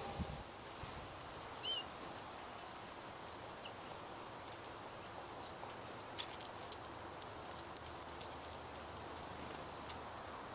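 Small finches feeding at a mesh thistle-seed sock: irregular light clicks and patter, thickest in the second half. A short high bird call comes about two seconds in, and a low bump sits at the very start.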